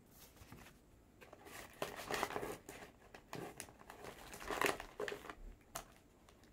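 Plastic snack wrappers crinkling and rustling as a hand rummages through a cardboard box of wrapped candies and snacks. The crinkling comes in irregular bursts, loudest about two seconds in and again about four and a half seconds in.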